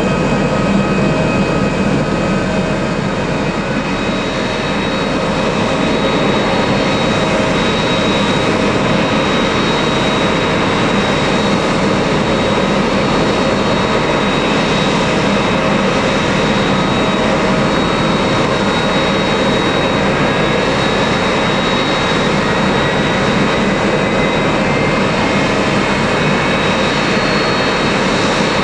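Jet engines of a Boeing 767-300ER airliner running steadily, a continuous roar with a high whine of several steady tones over it.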